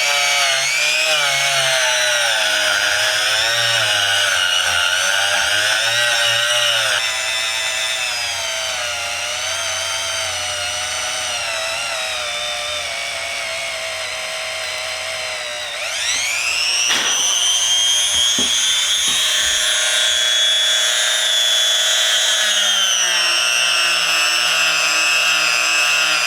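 Small power tool motor running under varying load while cleaning a screwdriver's metal shaft, its pitch wavering and sagging as it is pressed against the work. About sixteen seconds in it dips and then spins back up to a steady higher pitch.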